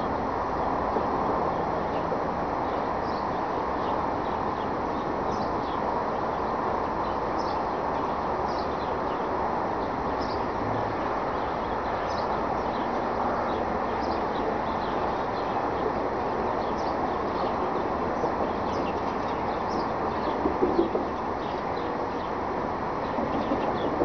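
Unidentified distant banging: a cluster of sharp bangs about 21 seconds in, with fainter ones near 18 seconds and at the very end, over a steady outdoor rumble with small birds chirping.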